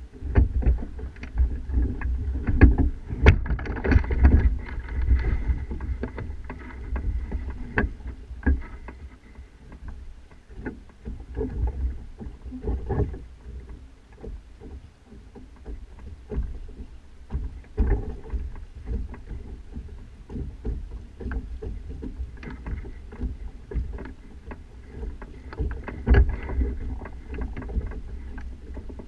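Wind rumbling on a mast-top action camera on a sailing kayak, with many sharp knocks and rattles at uneven intervals from the mast and its fittings as the boat moves, busiest in the first few seconds and again near the end.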